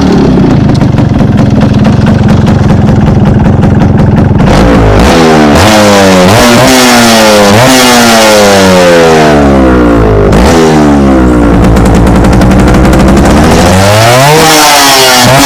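Yamaha RX 135's two-stroke single-cylinder engine, loud through its exhaust: a steady run for about four seconds, then accelerating through the gears with the pitch climbing and dropping sharply at each shift, about five times. Around the middle third the pitch falls away slowly as it eases off, then rises again near the end.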